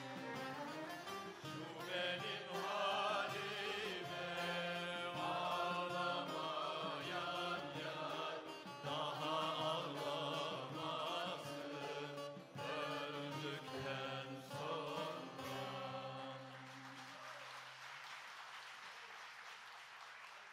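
Turkish folk music choir singing the closing phrases of a türkü over a plucked-string ensemble. About sixteen seconds in the music ends and audience applause follows.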